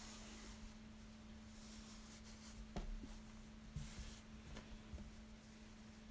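Faint rustling of cloth and thread being drawn through it during hand sashiko stitching, with a few soft taps.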